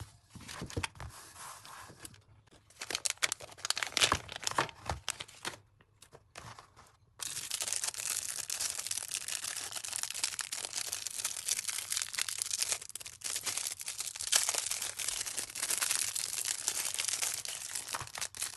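Packaging crinkling and tearing as a paint-by-numbers kit is unpacked by hand. It comes in separate bursts at first, then crackles continuously from about seven seconds in.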